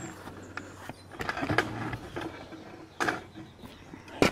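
Knocks and clatter of the camera being carried and set down: a few short bumps, with one sharp knock at the very end.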